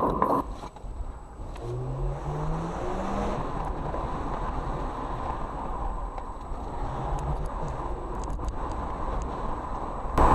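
Car on the move: a steady engine and road rumble, with the engine note rising as it accelerates about two seconds in and again briefly near seven seconds.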